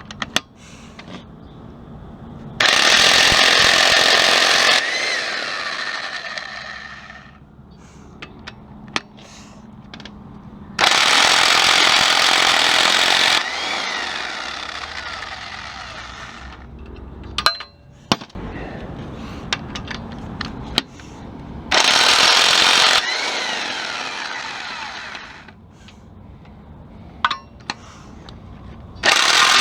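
Impact wrench hammering in bursts of one to three seconds, three times and again at the very end, each trailing off over a few seconds, as it spins out 15 mm cylinder head bolts on a 3.1L V6; light metal clicks and clanks come between the bursts.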